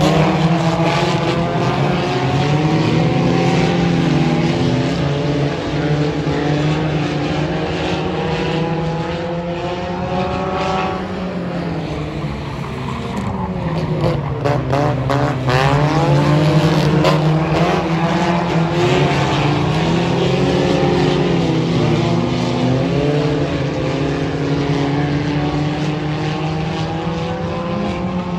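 Several four-cylinder dirt-track race car engines running hard around the oval, their pitch rising and falling as the cars accelerate, lift and pass.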